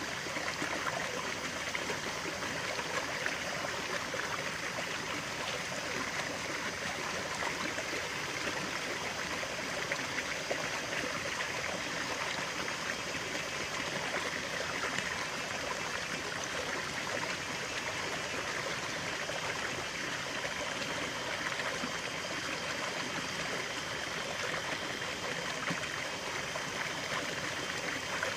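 Stream of running water, a steady babbling rush with most of its energy in the middle and upper range.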